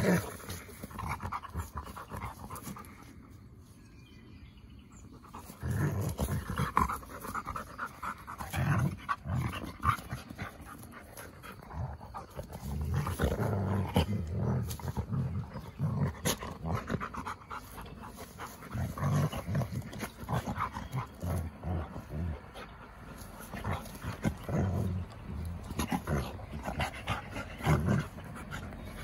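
Husky and wolf-dog pups play-wrestling: panting and play-growling in irregular bursts, with the rustle of bodies on grass and a short lull a few seconds in.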